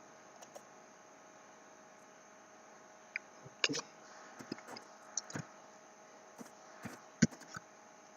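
Irregular, sharp clicks of a computer mouse and keyboard during CAD work, over a faint steady electrical hum.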